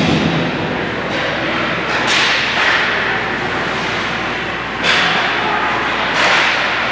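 Ice hockey play on the rink: four sharp scraping strikes, from skate blades and sticks on the ice, each trailing off in a fading hiss over steady arena hum.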